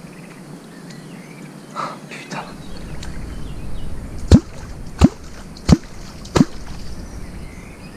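Four clonk strokes on the water about 0.7 s apart, each a deep hollow bloop, used to call a wels catfish to the bait.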